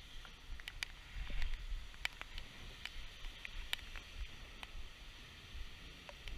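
Dull, muffled rumble heard through a GoPro's sealed waterproof housing, with scattered light ticks and taps on the case.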